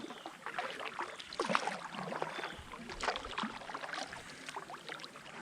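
Kayak being paddled: quick small splashes and drips of water from the paddle blades.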